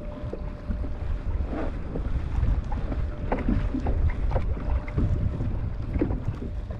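Wind buffeting the microphone, with water splashing and lapping in short, irregular slaps against a kayak's hull.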